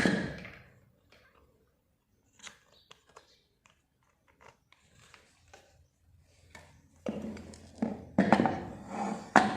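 Small clicks, scrapes and rubbing from hands working on a sewing machine and its parts. The sounds grow louder and busier for the last couple of seconds, with a run of knocks and rubbing.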